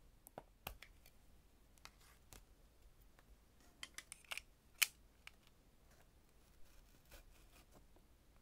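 Scattered small clicks and taps of stationery being handled on a desk, with a flurry of sharper clicks about four to five seconds in.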